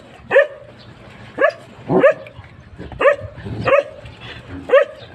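Dog barking: six short, high barks, roughly one a second at uneven spacing.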